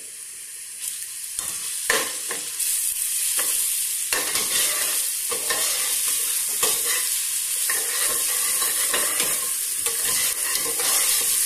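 Sliced onions with chopped ginger and garlic sizzling in hot oil in a stainless steel pot, with a metal spoon scraping and knocking against the pot as they are stirred. The sizzle grows louder about two seconds in.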